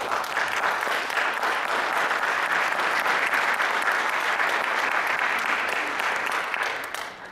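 Audience applauding at the end of a lecture, a dense steady clatter of many hands clapping that begins suddenly and dies away near the end.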